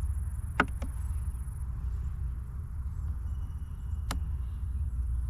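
Sharp clicks of wooden beehive frames being worked apart with a hive tool, where cross comb joins them: two close together about half a second in, and one more near the end. A steady low rumble runs underneath.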